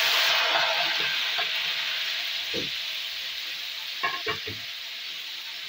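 Chopped tomatoes sizzling as they drop into hot oil in a kadai, loudest at first and slowly dying down. A metal spatula stirring them clinks against the pan a few times, about two and a half and four seconds in.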